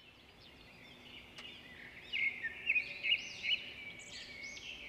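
Several songbirds singing and chirping together, with quick arching whistled notes and trills; the sound fades in at the start and the calls grow louder and busier from about two seconds in.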